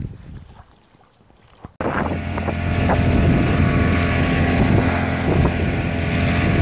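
After a faint first two seconds, a 9.9 hp outboard motor cuts in abruptly, running steadily at moderate throttle during its break-in as the inflatable boat moves across the water.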